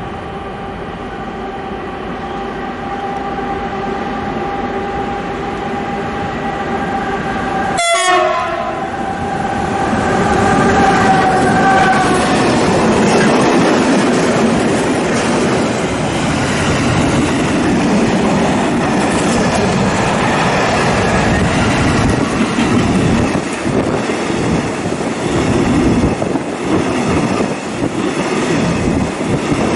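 SNCB class 13 electric locomotive approaching with a steady multi-tone whine that grows louder, a sharp crack about eight seconds in, then a freight train of tank-container wagons rolling past close by, its wheels rumbling and clattering on the rails.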